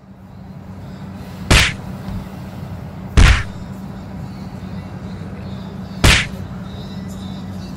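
Three loud, sharp thumps, about a second and a half in, again near three seconds and once more about six seconds in, over a steady low hum.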